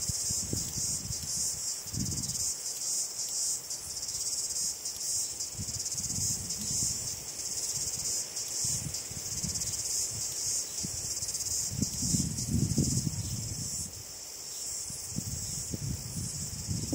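Crickets chirping in a steady, high, continuous trill. Soft low rumbling puffs come and go underneath, strongest a little past the middle.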